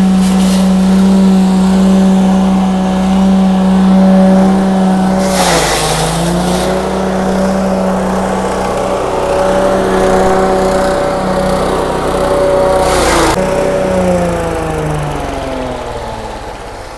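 Chaff-cutter chopper driven by a 6.5 hp petrol engine, running steadily while chopping corn stalks. Twice, at about five and a half seconds and thirteen seconds, a burst of crunching comes as stalks are fed to the blades, and the engine's pitch dips briefly under the load. Near the end the pitch falls and the sound fades as the engine slows.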